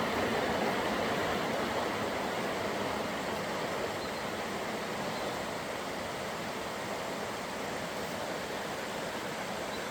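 Waterfall: a steady rush of falling water that eases slightly over the first few seconds, then holds steady.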